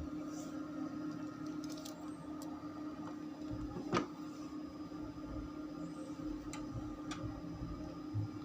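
Quiet steady hum, with a single sharp click about four seconds in and a few fainter ticks.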